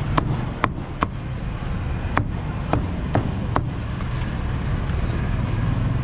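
Cleaver chopping crispy roast pork belly on a thick round wooden chopping block: about seven sharp chops in the first three and a half seconds, then a pause, over a steady low background hum.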